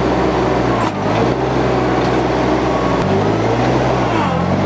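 Summit TX25 compact tractor's diesel engine running steadily under load while the front loader works a stump bucket. Its note shifts a few times, about a second in, around three seconds in and near the end.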